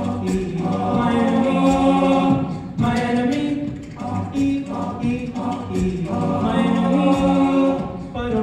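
A cappella vocal group singing held chords in several voices, in long sustained phrases with no instruments.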